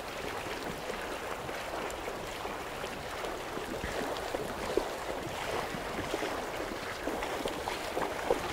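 Steady rush of shallow river water flowing past, with a few light splashes.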